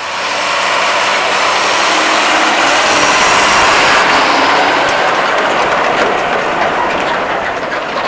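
John Deere tractor pulling a grain trailer drives past close by on a dirt track: engine and rolling noise swell to their loudest about halfway through as it passes, then begin to fade as it moves away.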